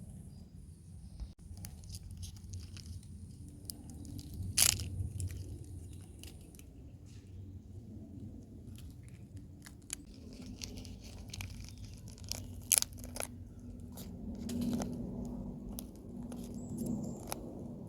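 Oyster mushrooms being torn off and handled, a run of crunching and crackling with two sharp snaps, about four and a half seconds in and near thirteen seconds.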